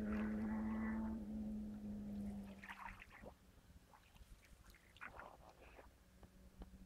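A flying insect buzzing close by: a steady hum that fades out about two seconds in. After it come faint, scattered short sounds and clicks.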